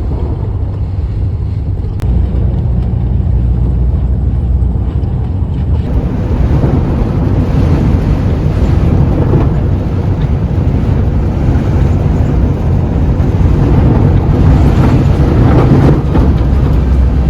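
Strong wind buffeting the microphone over the steady road and engine noise of a moving motorhome, driving through gale-force winds. The noise grows louder from about six seconds in.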